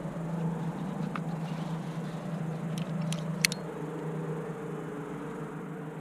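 Three sharp clicks close together about halfway through, the last the loudest, as climbing gear knocks, over a steady low rumble.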